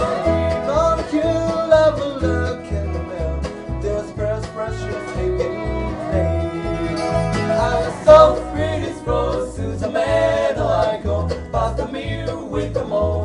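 Live bluegrass band playing: picked banjo and acoustic guitar over a steady, even bass beat.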